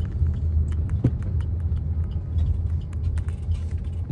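Low, steady rumble of a car's engine and road noise heard from inside the cabin while driving, with scattered light clicks and rattles.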